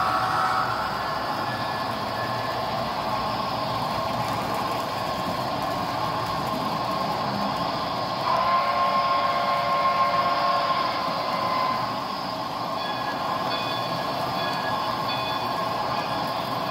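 Model freight train running past on the layout, a steady mechanical running sound with thin whining tones. The whine grows louder from about eight seconds in and eases off about four seconds later.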